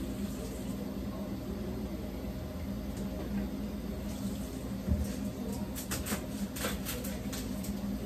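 Kitchen counter work: a few light clicks and knocks of utensils and dishes being handled over a steady low hum. There is a dull thump about five seconds in, then a cluster of clicks over the next two seconds.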